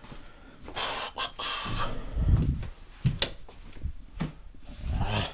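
A person breathing heavily close to the microphone, with several noisy breaths and a few sharp clicks and knocks of handling.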